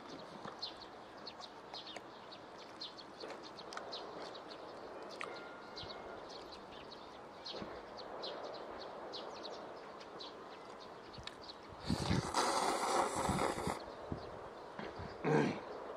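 A loud, noisy slurp of cold chewy jjolmyeon noodles lasting about two seconds, starting about twelve seconds in, and a shorter slurp near the end. Short high bird chirps repeat throughout.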